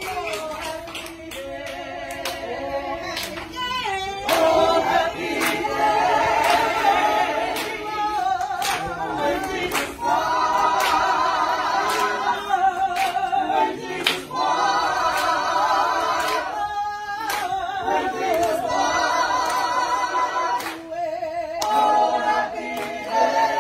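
A group of voices singing together a cappella in long held notes, with hand claps keeping time.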